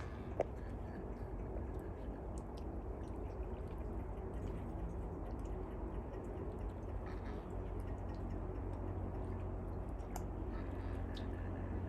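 Outdoor background noise: a steady low rumble with scattered faint clicks and one sharp click about half a second in.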